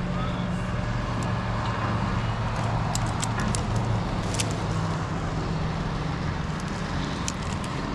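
A large engine running steadily at idle, a constant low hum with a few faint clicks over it.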